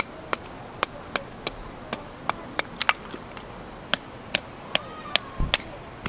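Firewood being split into kindling by batoning: a wooden baton knocking on the back of a knife blade driven down through the wood, making sharp wooden knocks about two or three a second, with a heavier thud near the end.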